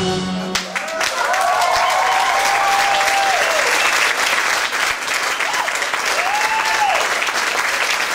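Audience applauding as the dance music stops in the first second, with two long cheering calls from the crowd: one about a second in, and a shorter one around six seconds.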